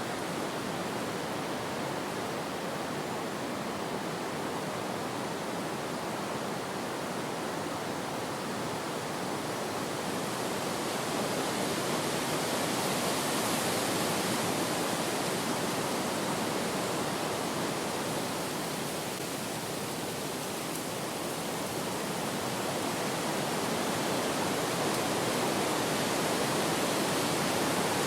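Wind blowing steadily, swelling a little about halfway through and again near the end.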